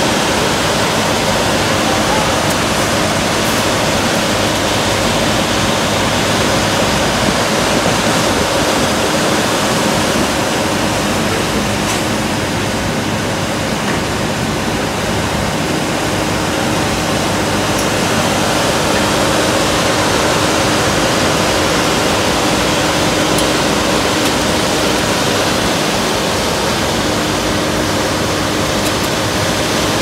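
Asphalt paver's diesel engine and spreading gear running steadily: a loud, constant machine noise with a steady hum that does not change.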